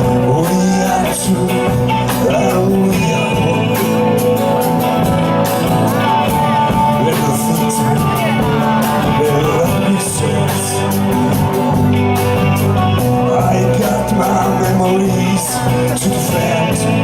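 Live band playing a rock song, with singing.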